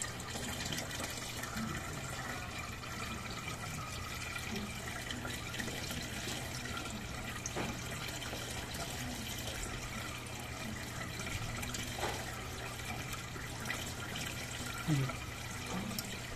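Water running steadily in a turtle tank over a low, steady hum, with a few faint clicks.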